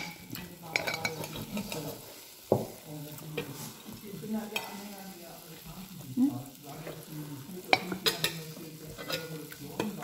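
Knife and fork scraping on a plate as a steak is cut, with a few sharp clinks of cutlery against the plate.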